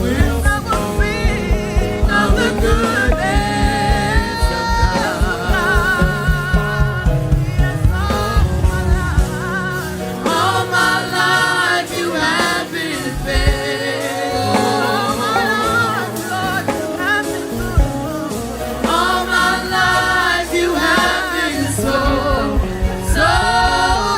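Live church worship music: singers with a band playing a steady beat. The drums drop out for several seconds midway, then come back in.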